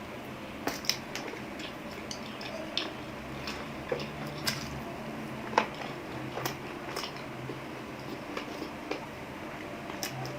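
Utensils clicking and clinking against dishes during eating: irregular short clicks, a few a second, over a low background.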